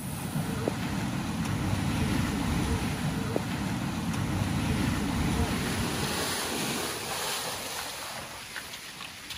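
Steady rushing and rumbling of a rain-swollen river, mixed with wind buffeting the microphone, easing off over the last couple of seconds.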